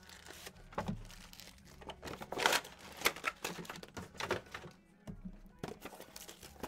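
Trading-card boxes being handled and set down on a table: scattered rustling and crinkling, with light knocks of cardboard on the tabletop.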